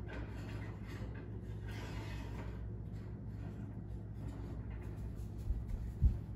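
Faint handling noise of a cake pan and rack inside an open oven, over a steady low hum, with a couple of soft thuds near the end.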